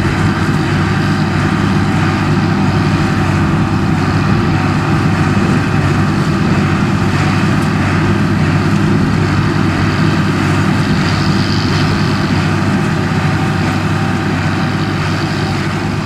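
Large diesel farm tractor running steadily at working speed, pulling a small square hay baler. The engine and machinery make an even drone that holds without change.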